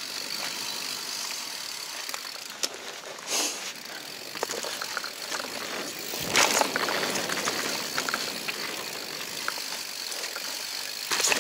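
Mountain bike rolling fast down a dirt singletrack: steady tyre noise on the dirt, with scattered clicks and rattles from the bike and a louder jolt about six seconds in.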